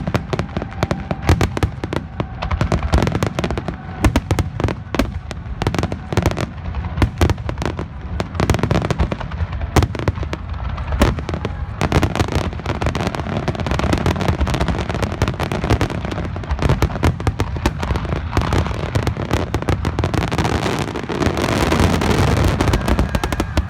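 Fireworks going off in a rapid barrage: many booming bursts in quick succession. About twenty seconds in they thicken into a dense crackle.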